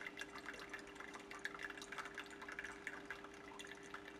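Slow trickle of water dripping from a rubber outlet tube into a glass beaker, as many small irregular drips, over a steady faint hum.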